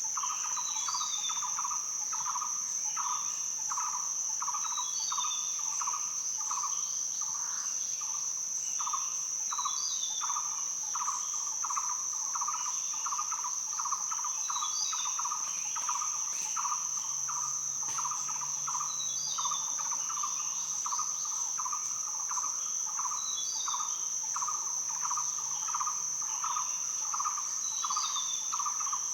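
Steady high-pitched insect trill, typical of crickets, over a lower rhythmic pulsing chorus, with a bird giving a short high call every few seconds.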